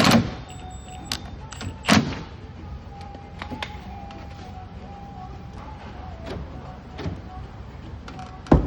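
Clicks and clunks of a Honda Civic door handle and lock parts being handled and worked: three loud sharp knocks, at the start, about two seconds in and near the end, with lighter clicks between.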